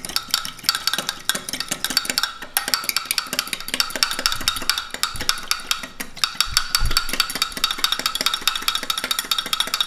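A fork whisking a thick miso sauce in a glass Pyrex measuring cup: rapid, steady clinking of the fork against the glass, with brief breaks about two and a half and six seconds in.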